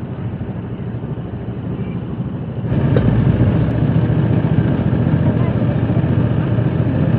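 Sugarcane crushing machine running with a steady low mechanical hum, which gets louder about three seconds in.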